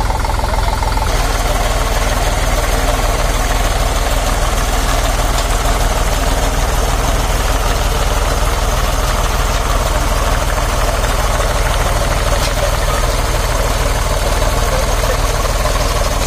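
Tractor diesel engine running steadily with a rapid, even low beat.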